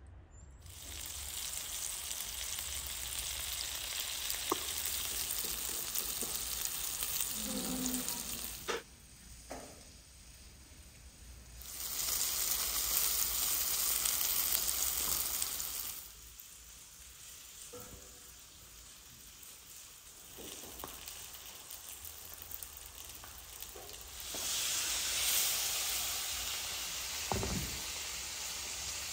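Flour-coated whole fish sizzling as they fry in hot oil, a steady hiss that drops away and returns a few times. A few light knocks of the fish being handled near the end.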